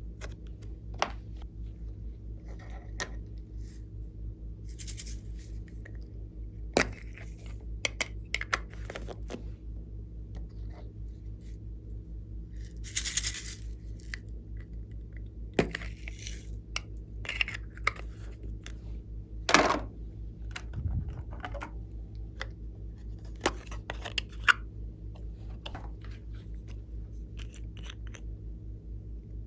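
Glossy slime being worked by hand, giving scattered sticky clicks, pops and short crackles, over a steady low hum.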